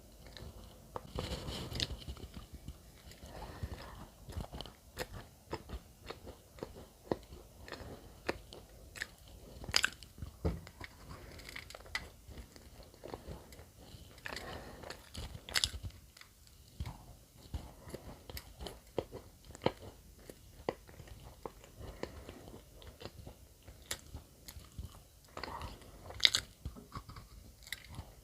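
A person chewing and biting bread close to the microphone, with wet mouth sounds and many sharp clicks and crackles throughout; the loudest clicks come about ten, fifteen and twenty-six seconds in.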